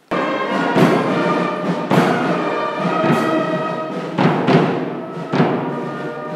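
Brass band playing a slow, stately piece, with drum strokes about once a second. The music starts abruptly.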